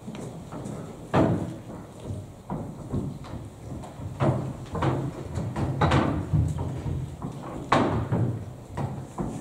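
Children's footsteps thudding and knocking on a hollow stage platform, irregular, with louder bangs about a second in and near eight seconds.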